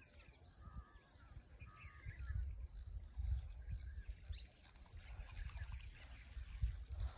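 Faint outdoor ambience: uneven low rumbling of wind on the microphone, a few faint bird chirps in the first couple of seconds, and a steady high-pitched drone.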